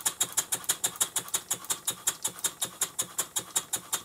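Stuart 5A model steam engine running on compressed air, with a rapid, even clicking beat of about nine a second from the engine and the lubricator's ratchet-and-pawl drive. The lubricator is still not working right: the pawl is not driving the ratchet reliably.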